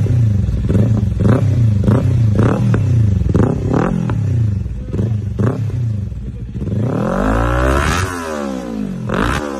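Kawasaki Ninja 200 with an aftermarket exhaust, its throttle blipped in quick revs about twice a second, then held for one long rev that rises and falls, then one last short blip near the end.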